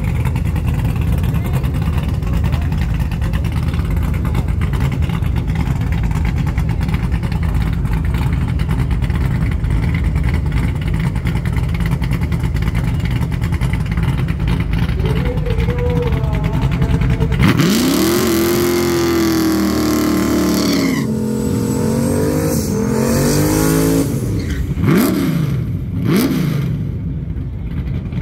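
Drag race car engines at the start line, idling with a loud, steady low rumble. About 17 seconds in, an engine revs up sharply with a hissing haze for about three seconds, typical of a tyre-spinning burnout. A few quick rev rises and falls follow.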